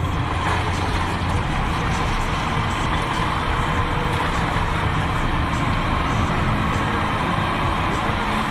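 Classic Lada car driving, with its engine and road noise heard from inside the cabin as a steady hum.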